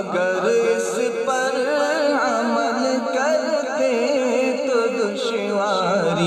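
A male voice singing a devotional Urdu nazam, drawing out a long melismatic phrase whose pitch wavers up and down without a break.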